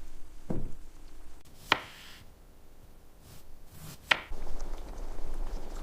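Kitchen cooking sounds: a low knock, then two separate sharp clicks or taps of utensils on a hard surface, with a steady low rustling noise after the second click.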